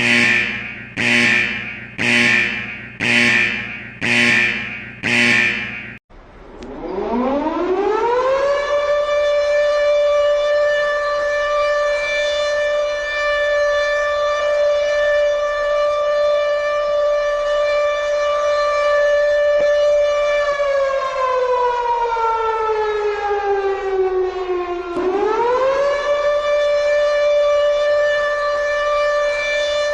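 A pulsing alert tone sounds about once a second and cuts off sharply about six seconds in. Then an air-raid siren winds up in pitch and holds a steady wail. Around twenty seconds in the wail falls in pitch, then winds back up and holds again.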